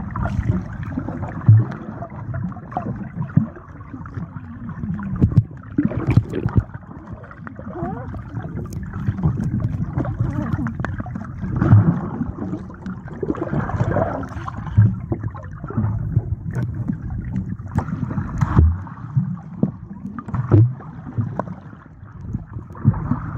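Muffled water sloshing and gurgling, with irregular knocks and bumps throughout.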